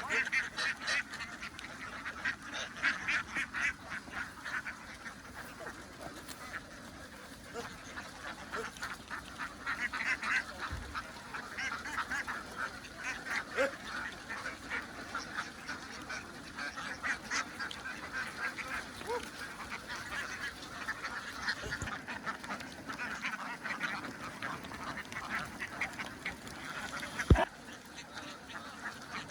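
A large flock of ducks quacking continuously, many calls overlapping, with one sharp knock near the end.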